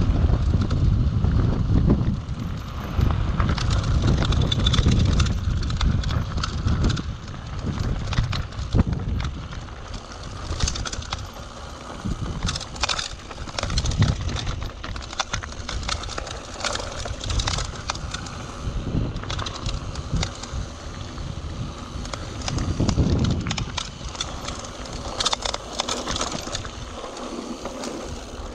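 Mountain bike descending a rocky dirt trail: tyres crunching over loose stones and the bike rattling with frequent sharp knocks, wind rumbling on the microphone, heaviest in the first ten seconds or so.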